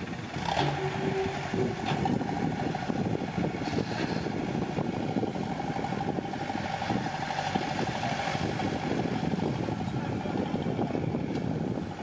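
Diesel engine of earthmoving machinery, most likely the mini bulldozer, running steadily under work. It picks up just after the start and carries a few sharp knocks in the first few seconds.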